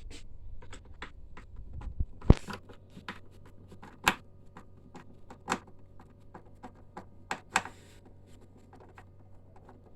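Irregular clicks and knocks from hands and tools working on an inkjet printer's chassis and parts, the sharpest knock about two seconds in, over a low steady hum.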